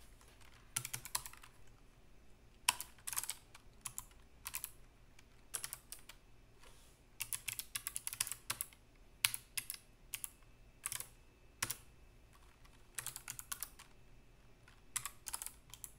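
Typing on a computer keyboard: quick runs of keystrokes in irregular bursts, with short pauses between them.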